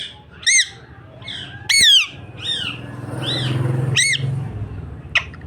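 Pet parrot squawking repeatedly: about eight short, loud, high screeches, each rising and falling in pitch.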